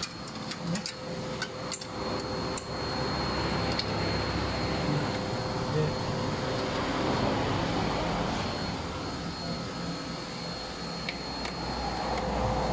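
A few sharp metallic clicks and knocks from hand work on parts in a car's engine bay, mostly in the first few seconds. Underneath is a steady background hum with a faint high whine, which swells into a louder rushing rumble around the middle and again near the end.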